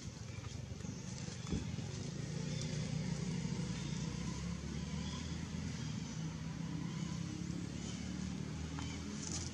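A motor engine running steadily, a low hum, with faint voices in the background.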